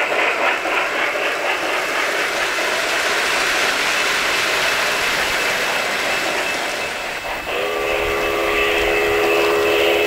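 Three-rail O-scale model train rolling along the track with a steady rushing wheel noise. About seven and a half seconds in, a model steam locomotive's whistle blows a multi-note chord, held for about two and a half seconds.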